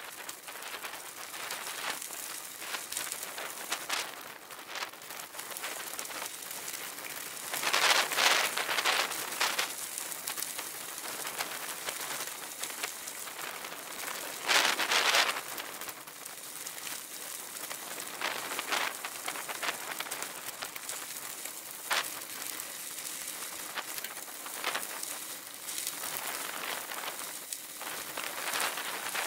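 Bicycle tyres rolling over a loose gravel road, a continuous crunching crackle. It grows louder in two stretches, about eight and fifteen seconds in.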